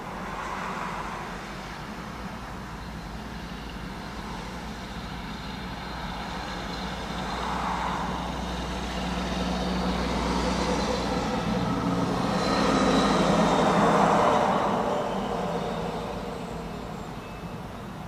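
Road traffic: vehicles passing over a steady low hum, the loudest pass swelling up about 13 to 14 seconds in and then fading.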